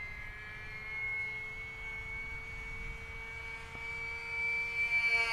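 E-Flite UMX Pitts S-1S micro RC plane's electric motor and propeller whining steadily in flight on a 3-cell battery, the pitch falling near the end.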